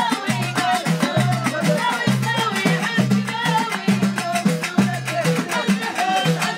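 Moroccan wedding music: voices singing over a fast, steady percussion beat and a repeating bass line, with the sharp clatter of a metal tray beaten by hand as a drum.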